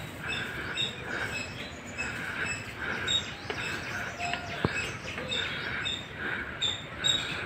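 Short high chirps repeating steadily, just under two a second, from an animal calling, with one sharp knock about halfway through.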